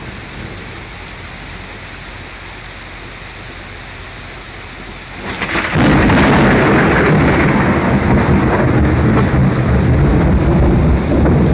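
Steady rain during a thunderstorm. About five seconds in, a loud thunderclap breaks suddenly and keeps rumbling through the rest.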